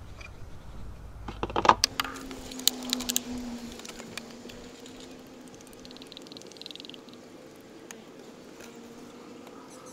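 A plastic funnel is knocked into the engine's oil filler neck with a few sharp clicks. Then fresh engine oil pours from a plastic jug through the funnel, a steady pour with a faint low tone running under it.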